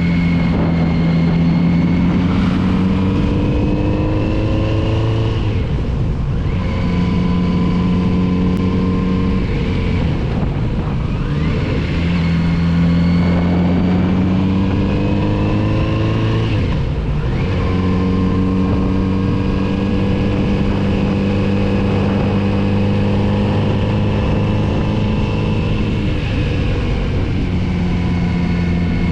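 Kawasaki Z900RS's 948 cc inline-four engine pulling the bike along, revs climbing steadily, then falling away sharply about three times before climbing again.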